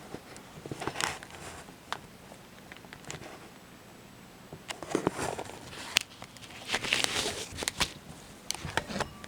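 A pet eating dry food: scattered small clicks and crunches, in short clusters about a second in, around five seconds, and again near the end.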